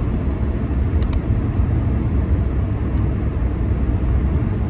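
Road noise inside a moving car on a wet highway: a steady low rumble of tyres and engine. Two quick clicks come about a second in.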